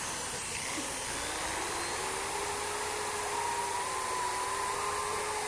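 Electric drill running at a steady speed, its whine rising a little in pitch over the first two seconds and then holding.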